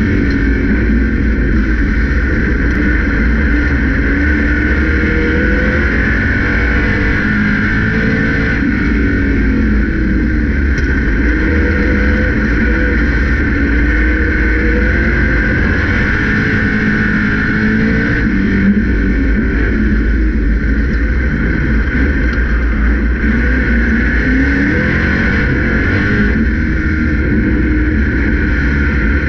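Grand National stock car's engine heard from inside the cockpit at racing speed, its pitch rising and falling every few seconds as it laps, over a steady low rumble.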